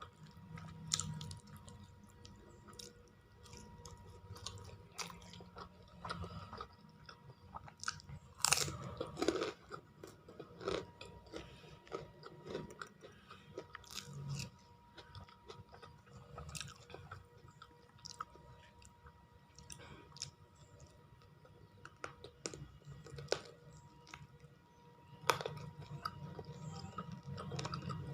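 A person chewing and crunching crisp fried food close to the microphone: irregular crunches and clicks of bites over steady mouth sounds, loudest about eight seconds in and again near the end.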